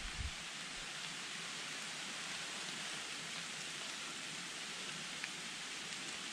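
Steady rain falling through the forest onto fallen leaves, an even hiss throughout. A couple of low thumps come just after the start.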